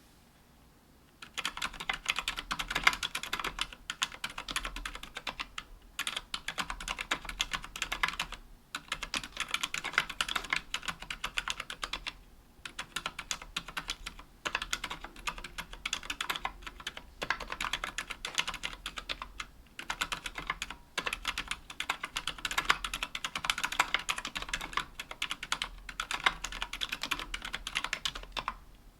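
Continuous typing on a KBDfans Tofu 60% aluminium mechanical keyboard with Healios Silent Linear 67g switches and GMK keycaps: a fast, dense stream of keystrokes. It starts about a second in and is broken by a few brief pauses.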